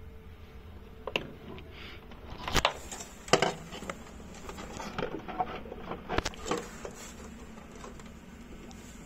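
Scattered sharp knocks and clicks of hands handling the generator's battery compartment: metal battery clamps and the wooden boards over the batteries. The two loudest knocks come about two and a half and three and a half seconds in, with smaller clicks a couple of seconds later.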